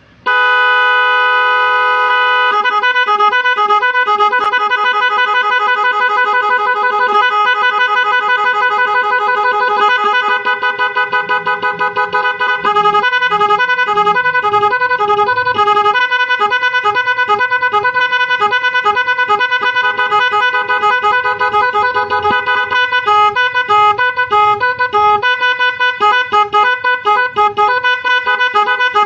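Electronic 12-volt telolet echo horn playing a loud melody: it holds one tone for about the first two seconds, then plays quickly changing notes in a running tune.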